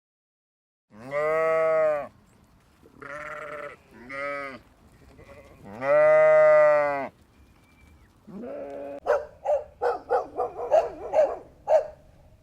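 Bleating livestock: four long, wavering bleats, the first and last the loudest. Then a rising call, followed from about nine seconds by a fast run of short, sharp calls, about three a second.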